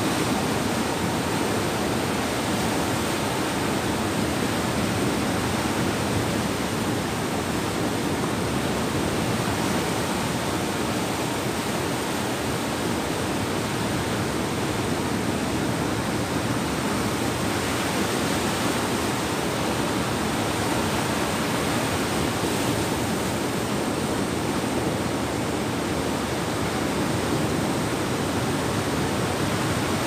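Ocean surf breaking in the shallows: a steady, even rush of white water.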